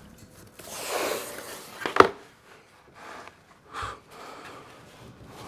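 A large wooden panel handled on a newspaper-covered workbench: a soft rustle of paper and board, then one sharp knock about two seconds in as the panel is set down.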